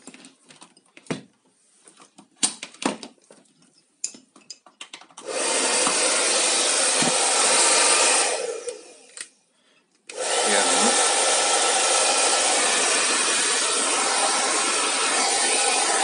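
Handheld hair dryer (PowerTec TR-901) being tested after its power cord was repaired: a few clicks and knocks of handling, then about five seconds in it is switched on and runs with a steady blowing noise. A few seconds later it is switched off and winds down, and about ten seconds in it is switched on again and runs steadily.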